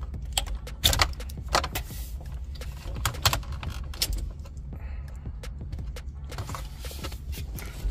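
Scattered clicks, knocks and rattles of plastic wiring-harness connectors and cables being handled and unplugged behind a car dash, over a low steady hum.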